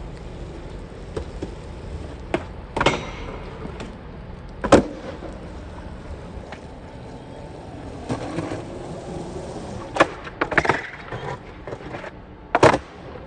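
Skateboard wheels rolling over pavement, with several sharp clacks of the board being popped and landed: loud ones about three seconds in, near five seconds, twice around ten to eleven seconds, and near the end.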